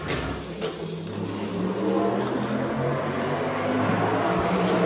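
A motor vehicle engine running with a steady low hum that swells about a second in and then holds.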